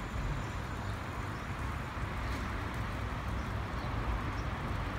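Steady running noise of a heavy-duty stand-on electric pallet truck driving and turning across concrete, an even hiss over a low rumble.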